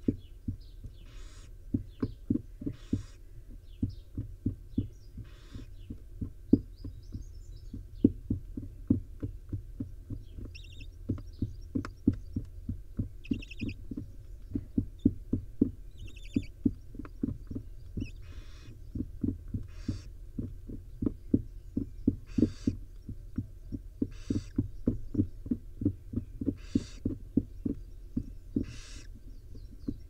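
Young barn owl nestlings giving short hissing begging calls every second or two. Under them runs a steady patter of soft low thumps and taps from movement in the wooden nest box, and a few quick chirps come about halfway through.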